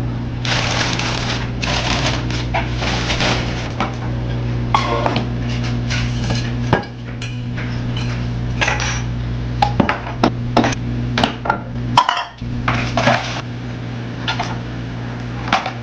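Dishes, cups and utensils clinking and knocking in a kitchen sink while being washed, with intermittent stretches of running tap water. A steady low hum lies under it all.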